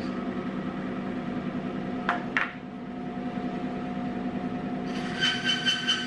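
JET 18-inch woodworking bandsaw running with a steady hum, with two short knocks about two seconds in. Near the end the blade starts cutting into a 1-inch-thick board of red cedar, adding a hiss and a higher whine.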